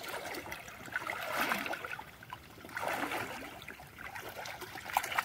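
Shallow water trickling and splashing lightly, with small irregular splashes.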